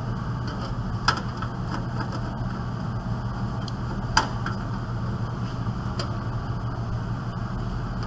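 Light clicks and taps of desktop computer parts being handled during reassembly, with two sharper clicks about one and four seconds in, over a steady low hum.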